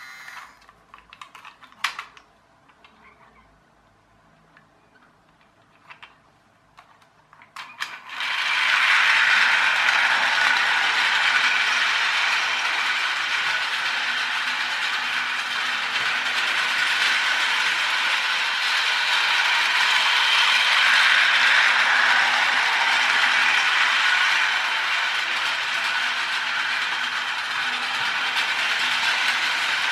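Battery-powered toy locomotive running on plastic track: the steady whirring rattle of its small motor and plastic gears. It starts about eight seconds in, after a few clicks.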